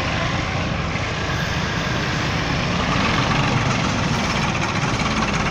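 Massey Ferguson 240 tractor's three-cylinder diesel engine running under load as it hauls a heavily loaded sugarcane trolley, a steady low throb that grows a little louder about halfway through.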